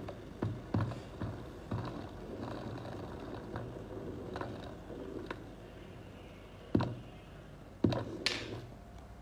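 Water at a rolling boil in a glass electric kettle, bubbling with irregular knocks and pops, a few sharper ones about two-thirds of the way through, followed by a brief hiss.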